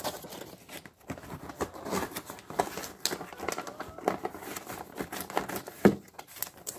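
Crinkling of a vinyl LP's clear plastic outer sleeve and rustling of its paper inner sleeve as the record is handled: irregular crackles and light taps, with one sharper tap shortly before the end.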